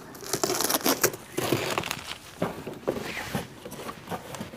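Cardboard box being opened by hand: its flaps pulled apart and rubbing, with an irregular run of crackles and scrapes.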